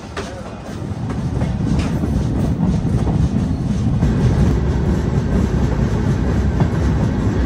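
A moving passenger train: a dense rumble of wheels on the rails with faint clatter, growing louder over the first couple of seconds as it picks up speed, then steady.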